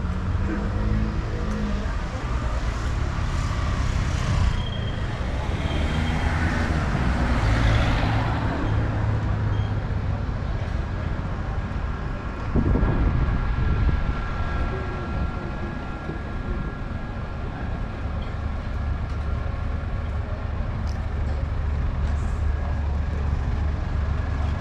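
Road traffic with a steady low engine rumble. A vehicle swells past about six to eight seconds in, and there is a louder rise about twelve and a half seconds in.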